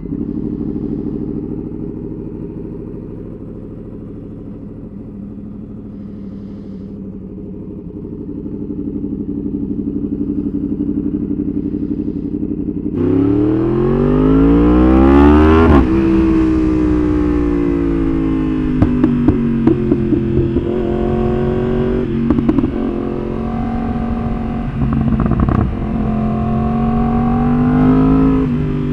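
Yamaha R1 inline-four engine catching on a cold start and running at a steady fast idle. About 13 seconds in, the revs climb sharply, drop, then rise and fall repeatedly with sharp pops and crackles from its pop-and-bang ECU tune.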